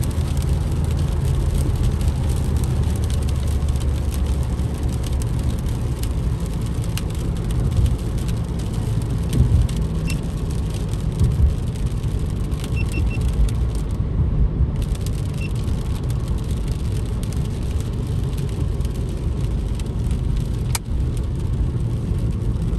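Cabin noise inside a moving Toyota Corolla GLi 1.3 on a rain-wet motorway: a steady low engine and tyre rumble under the hiss of tyres on the wet road. The high hiss briefly drops out about fourteen seconds in.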